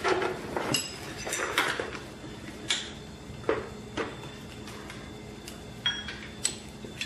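Metal hand tools, a ratchet and extension, clinking and knocking against bolts and the bare engine block of a 5.9 Cummins during teardown: scattered sharp clinks, a few with a short metallic ring.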